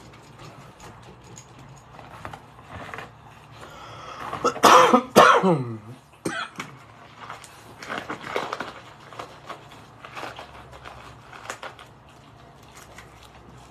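A person coughing, two sharp coughs about four and a half seconds in that trail off into a falling voiced sound, with a smaller cough or throat-clear just after; light scattered clicks and taps around it.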